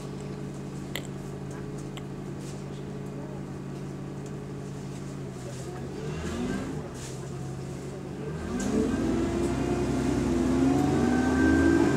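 A bus engine heard from inside the cabin, running at a steady idle hum and then revving up about two-thirds of the way in. Its note rises and grows louder as the bus accelerates away, and a thin whine joins near the end.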